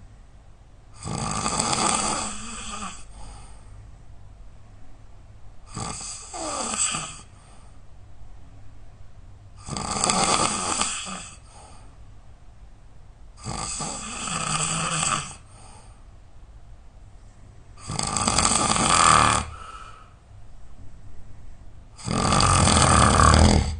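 A person snoring really loud during sleep: six snores about four seconds apart, each lasting a second and a half to two seconds, with quieter breathing between them.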